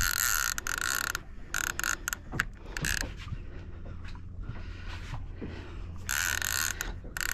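Fishing reel's drag buzzing in spells as a hooked fish pulls line off against it: a run in the first three seconds, broken by short pauses, and another near the end.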